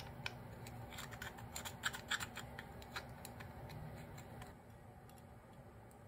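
Small screwdriver tip scraping and picking inside a metal carburetor float bowl to get old seal glue out: a run of faint scratches and small clicks that stop about four and a half seconds in, over a steady low hum.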